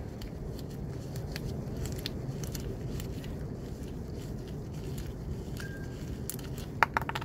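Faint scattered clicks and scraping of the old crush washer being worked off a steel oil drain bolt by gloved hands, with a quick run of sharper clicks near the end, over a steady low background noise.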